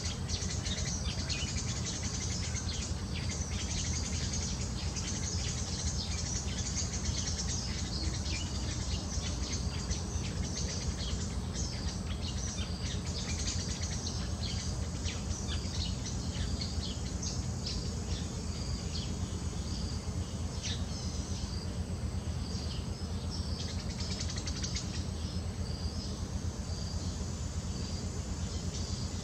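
Outdoor ambience of birds chirping and insects buzzing: many short high chirps, denser in the first two-thirds, over a steady low rumble.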